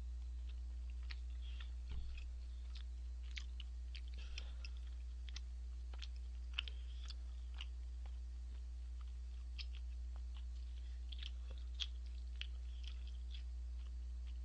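Close-miked chewing of chewy tteokbokki rice cakes: many small, irregular wet mouth clicks and smacks over a steady low hum.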